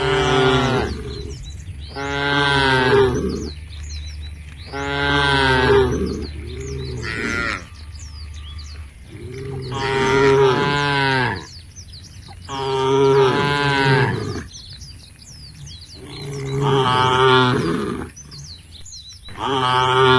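Cows mooing, about seven long calls, one every two to three seconds.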